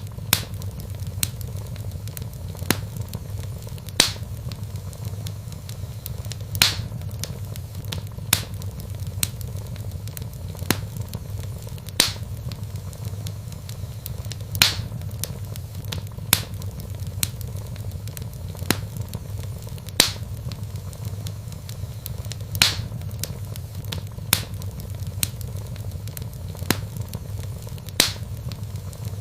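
Wood logs burning in a fireplace, crackling: sharp pops every second or two over a steady low rumble.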